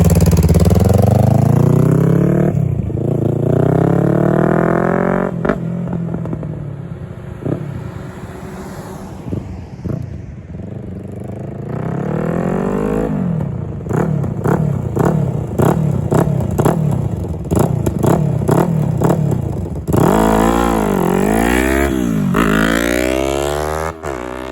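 A 2017 Yamaha R3's parallel-twin engine accelerating hard, its pitch climbing and dropping at upshifts about two and a half and five seconds in, then fading with distance. It comes back louder later, revving up and down sharply near the end.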